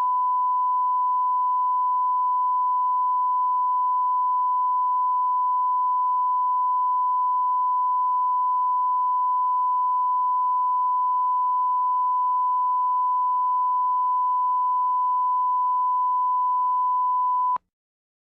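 Television colour-bars test tone: a steady, unbroken 1 kHz sine-wave beep at one pitch that cuts off suddenly near the end.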